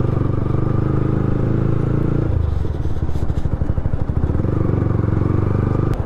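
Sport motorcycle engine with a modified aftermarket silencer running under way. About two seconds in the rider eases off and the exhaust drops to a lower, throbbing note, then the revs pick up again about a second and a half later.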